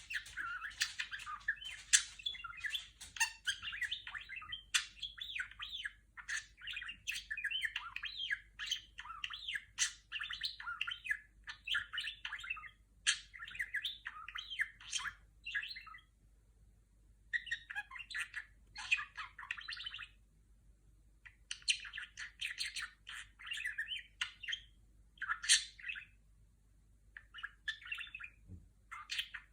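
Budgerigar warbling and chattering: rapid runs of chirps, clicks and squeaks in bouts of several seconds with short pauses, a bird-made burble that sounds like R2-D2's beeps.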